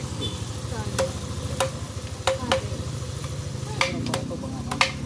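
Metal cooking utensils knocking as chicken is prepared and cooked: about six sharp, irregular strikes, each with a brief metallic ring, over a steady low hum.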